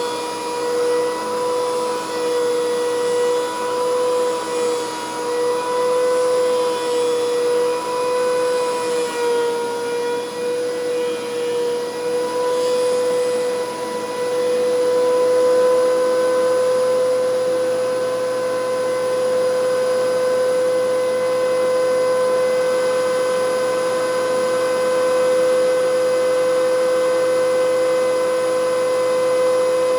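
DeWalt DW735 thickness planer running with a steady motor whine. The pitch wavers and dips a little through the first half, then holds steadier and slightly louder from about halfway.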